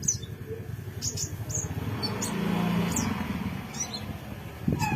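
Short, high chirps from a small songbird, the konin, several scattered through, over background noise that swells in the middle.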